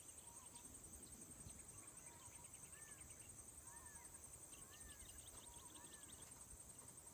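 Faint insect chorus: a steady, fast-pulsing high trill. Over it a bird gives a handful of short rising-and-falling calls and a few quick chittering trills in the middle.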